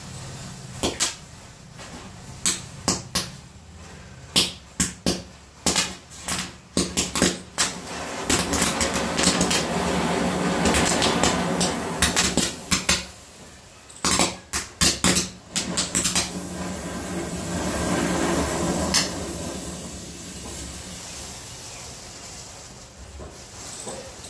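Matchsticks igniting one after another in a chain reaction: an irregular string of sharp flaring pops, with stretches of hissing, crackling burning match heads. The pops stop a little past the middle and the hiss dies away near the end.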